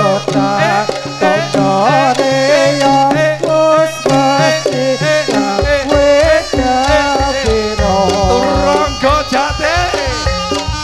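Live Javanese jaranan ensemble music: a melody line that bends in pitch, over drumming and gamelan percussion. A steady low drumbeat comes in about halfway through.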